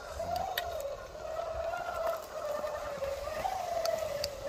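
Electric motor and gearbox of a radio-controlled scale crawler truck whining as it crawls over rock, the pitch rising and falling with the throttle. A few short sharp clicks come through, about half a second in and again near the end.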